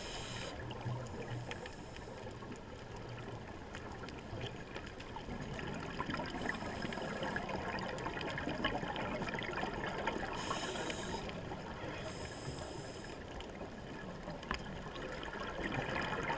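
Underwater sound on a coral reef dive: a steady watery hiss sprinkled with faint clicks, broken by a few short bursts of bubbling, each about a second long, typical of a diver exhaling through a scuba regulator.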